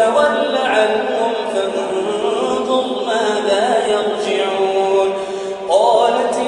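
A man's voice reciting the Quran in melodic chant, drawing out long held notes. The pitch wavers in the middle and slides upward near the end.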